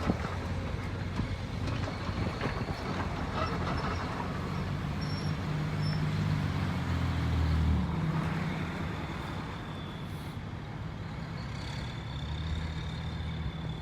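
Heavy diesel machinery running while loading asphalt into a dump truck. The engine revs up and gets louder in the middle, peaking around eight seconds in, then settles back to a steady run.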